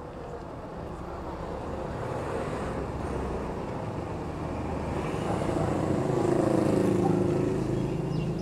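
A motor vehicle passing close by on the street. Its engine grows louder over several seconds, is loudest about seven seconds in, then fades.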